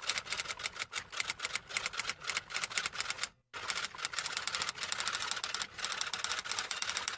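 Rapid typing: a fast, uneven run of key clicks with a brief break about three seconds in.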